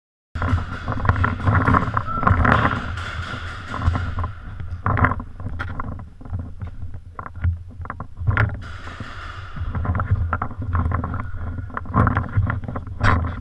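Rumbling handling noise on a gun-mounted action camera's microphone as the marker is carried while walking, with many irregular knocks and clicks.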